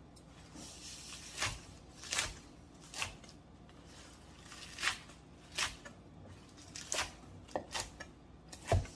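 Chef's knife chopping kale on a wooden cutting board: about nine separate knocks of the blade on the board, spaced unevenly, with leaves rustling as the hands gather the pile.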